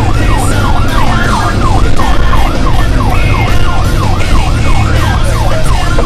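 A fire apparatus siren in yelp mode, sweeping rapidly up and down about three times a second, over a steady low engine drone, as the truck responds to an alarm.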